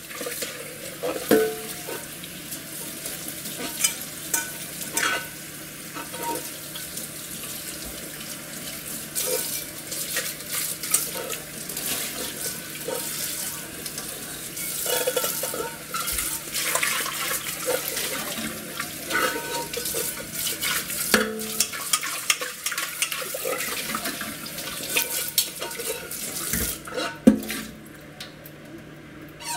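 Tap water running into a stainless steel sink as a stainless steel Instant Pot inner pot is rinsed and water is poured out of it, with several short knocks of the pot against the sink.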